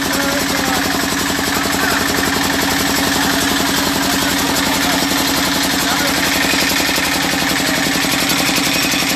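A vehicle engine running steadily with a fast, even throb, heard from inside the vehicle.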